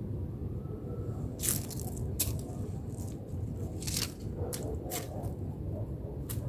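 Tabby cat pawing and mouthing at a beetle on paving strewn with dry leaves: about six short, dry crackles, spread unevenly, over a steady low rumble.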